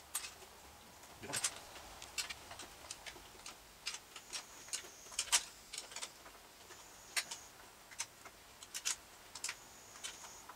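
Small hand wrench clicking and tapping against a bolt head as it is turned and refitted to tighten a 10 mm bolt on a string trimmer's guard bracket: irregular sharp clicks, about two a second.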